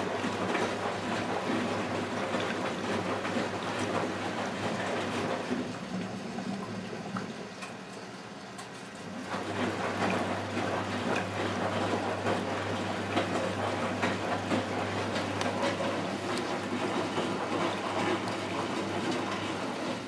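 Miele Automatic 416 front-loading washing machine washing: the drum tumbles laundry through the water with a steady low hum and sloshing. The sloshing eases off for a couple of seconds about seven seconds in, then picks up again as the drum turns once more.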